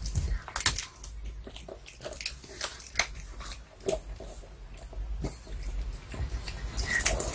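A Pomeranian gnawing and crunching on a duck cartilage-bone chew treat held between its paws, with irregular crunches and clicks of teeth on bone. The sound is picked up close by an earphone microphone lying on the floor.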